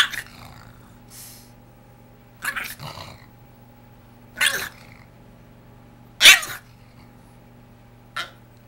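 Boston Terrier throwing a vocal tantrum: a series of short, high-pitched screams, about six in all, a second or two apart, in protest at his new bed.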